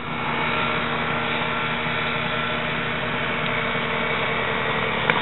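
Backpack paramotor engine idling steadily, with a short click near the end.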